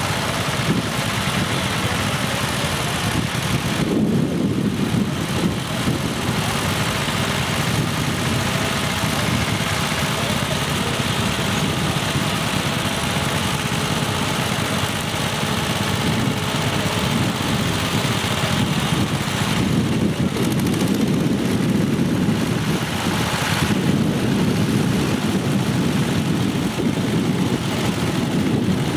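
Engine of a walk-behind tractor running steadily.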